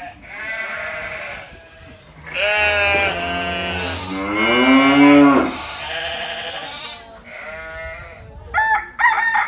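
Farm animals bleating several times, with one long wavering call in the middle, then a rooster crowing near the end.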